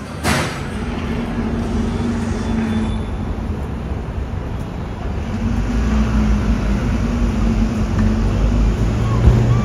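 City street traffic: a steady low rumble of vehicles with a faint low hum, swelling a little near the end. A short sharp noise sounds just after the start.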